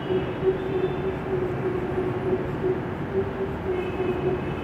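Steady mechanical hum and hiss with one constant droning tone, unchanging throughout.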